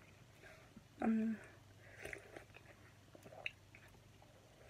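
Someone drinking soda from an aluminium can: a short hum about a second in, then faint sips, swallows and small mouth clicks.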